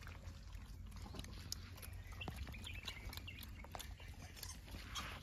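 Gray langurs feeding close by: faint scattered clicks and rustles, with a few short high calls in the middle, over a steady low rumble.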